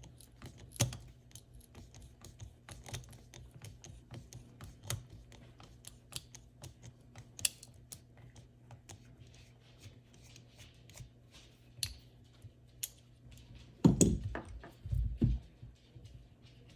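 Irregular small clicks and taps of a Leatherman Surge multi-tool being handled and worked on by hand, with a few louder knocks about fourteen seconds in, over a faint steady hum.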